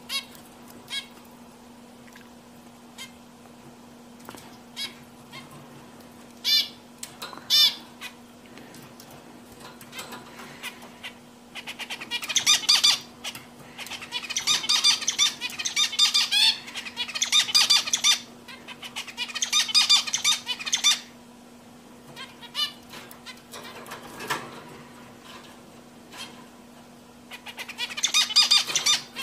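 Male zebra finch singing: scattered short calls in the first ten seconds, then bouts of rapid, buzzy song phrases from about 11 to 21 seconds in, and another bout near the end.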